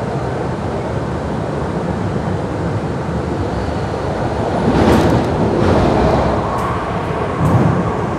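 Train running, heard from inside the passenger car: a steady low rumble, growing louder about five seconds in, with a few sharp clicks from the wheels and rails.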